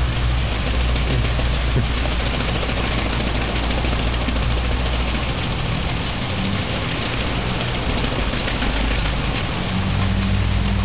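An engine idling steadily under a constant hiss, its low hum fading in the middle and coming back stronger near the end.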